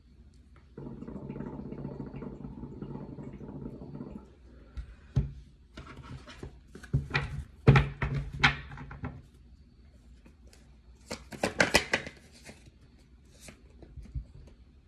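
Tarot cards handled and shuffled: sharp clicks and quick riffling strokes come in spurts, with a dense run near the end. Before them a steady low hum lasts about three seconds.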